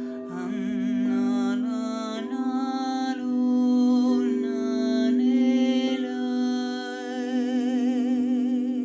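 Crystal singing bowls holding a steady drone, with a wordless voice singing long held tones with vibrato above it, moving to a new note about every second.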